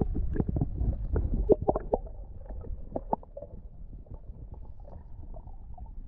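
Muffled underwater sound from a camera held below a lake's surface: a low rumble of moving water with clicks and knocks, busiest in the first two seconds and quieter after.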